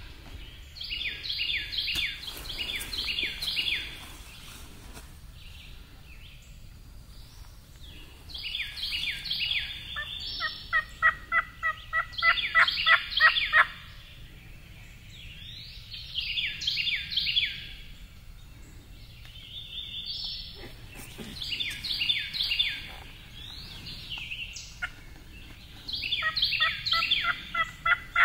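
Turkeys gobbling and calling in the woods, in about six separate bursts of rapid rattling notes. Two of the bursts run into strings of loud, evenly spaced notes, about ten in a row.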